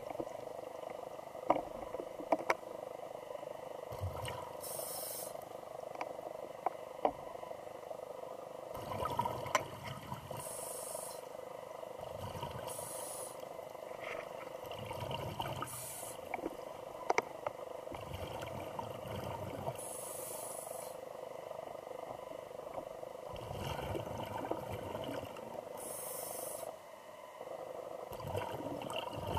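Scuba diver breathing through a regulator, heard underwater: a short hiss or bubble burst every few seconds, alternating with low bubbling rumbles, over a steady hum. Scattered sharp clicks run through it.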